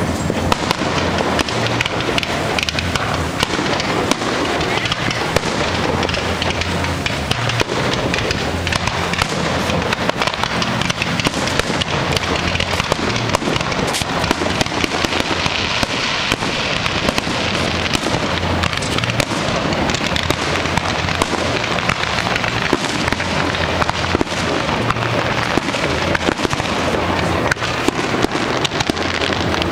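Aerial fireworks display: a dense, unbroken run of popping from bursting shells.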